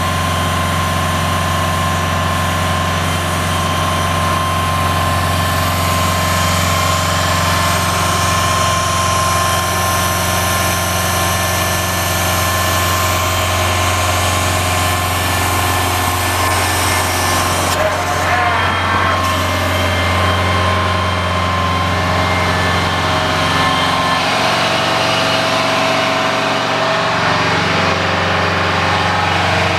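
Oshkosh M977 HEMTT truck's Detroit Diesel V8 running steadily at idle, with a steady high whine over the engine hum.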